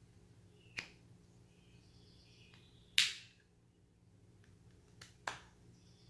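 Wooden panels of a Japanese Yosegi puzzle box being slid and knocking into place as the box is worked open: four sharp clicks, the loudest about three seconds in, two close together near the end.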